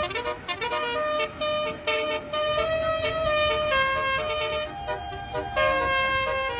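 Bus telolet horn playing a tune of held notes that step up and down in pitch, over a low rumble.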